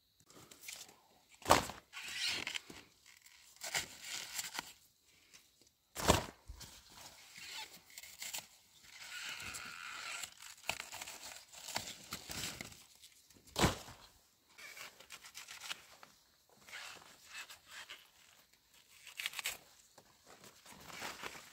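Rustling, crinkling handling noise, broken by three sharp knocks: about a second and a half in, about six seconds in, and near fourteen seconds.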